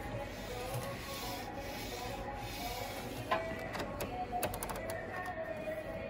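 Quiet shop background music, with rubbing and handling noise and a few sharp clicks as hands work inside a washing machine's drum and around its rubber door seal; the clearest click comes a little past halfway.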